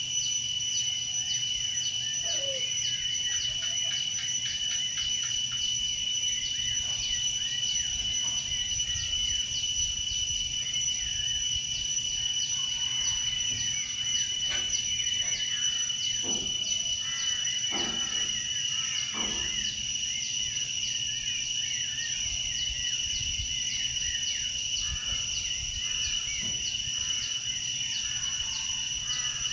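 A dusk chorus of forest insects: steady, high-pitched trilling that pulses rapidly, with scattered short chirping calls. A few lower, fuller calls come about halfway through.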